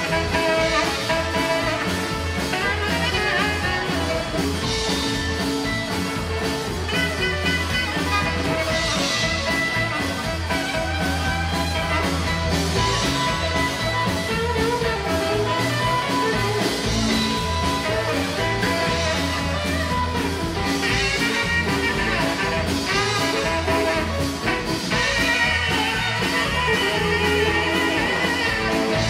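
Live rockabilly band playing an instrumental break without vocals: a saxophone plays lead over strummed acoustic guitar, electric guitar and drums.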